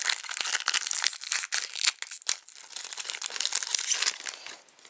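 Foil wrapper of a Topps Finest baseball card pack being torn open and crinkled by hand: a dense run of small crackles that dies down near the end.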